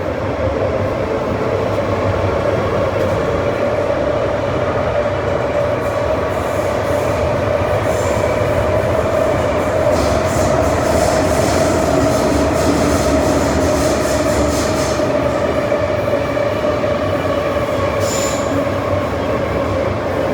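Metro-Cammell M-Train electric multiple unit running between stations, heard inside the car: a steady loud rumble and hum of wheels on rail. There are brief high wheel squeals about eight seconds in and again near the end.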